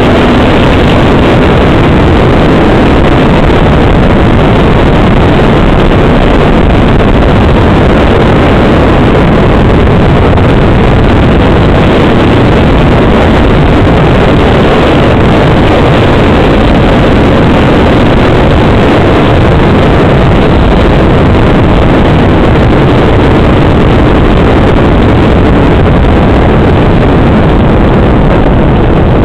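Dirt bike engine running steadily at cruising speed on a paved road, heard from on the bike, with wind rushing over the microphone; loud and unbroken.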